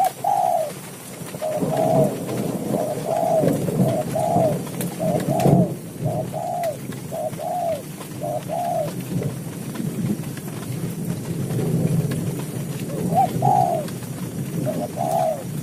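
Spotted dove (tekukur) cooing: a run of short coos repeated about once a second, a gap of a few seconds, then two more coos near the end.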